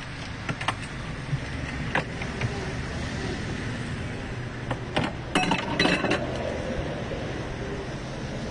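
A metal ladle clinking against a large aluminium soup pot: scattered single clinks, then a quick cluster of louder clinks a little past halfway, over steady background noise.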